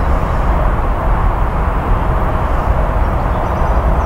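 Embraer E175 jet's twin GE CF34 turbofans running steadily while the airliner stands on the runway: a continuous roar and hiss with a deep rumble underneath.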